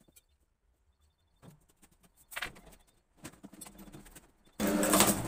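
A van's rear door being opened: faint footsteps on brick paving and small clicks and knocks as the door is unlatched and swung open, after about a second of near silence. Louder knocking and handling noise comes in near the end.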